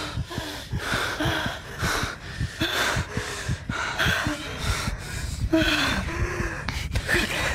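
Heavy, quick panting and gasping, some breaths voiced, of people catching their breath after running hard.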